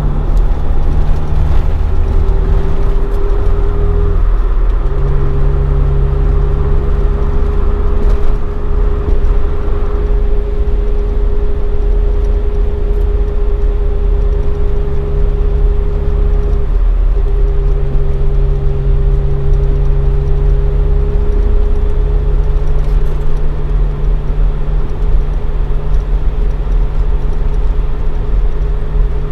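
Toyota AE86 Sprinter Trueno with a swapped AE111 20-valve engine on four individual throttle bodies and a Fujitsubo Legalis R exhaust, cruising at a steady engine speed. Its engine note holds even, with a few brief dips and shifts as the throttle or gear changes.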